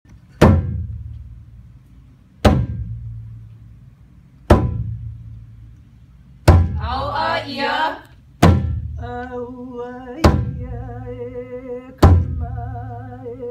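Large Hawaiian pahu drum struck by hand about every two seconds, each stroke a deep boom that rings down slowly. From about halfway through, a chanter's voice joins between the strokes, holding long notes that waver in pitch.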